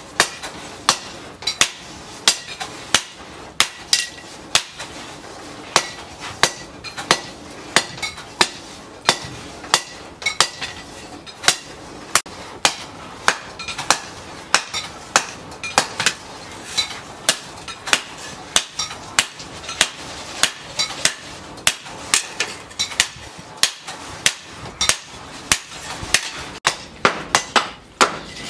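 Hand hammer beating a red-hot steel blade, cut from a tractor disc plough, on a round steel post anvil: steady blows about two a second, each with a short metallic ring, coming quicker near the end.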